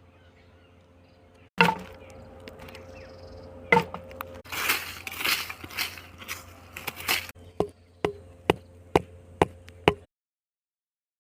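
Sharp chopping knocks: two single strikes, a few seconds of rustling and scraping, then a run of six evenly spaced knocks about two a second that cuts off abruptly.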